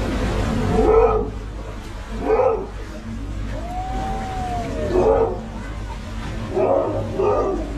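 A boat engine drones low with water rushing past the hull. Over it come short voice-like calls about every second or two, and a single clean whistle that rises and falls near the middle.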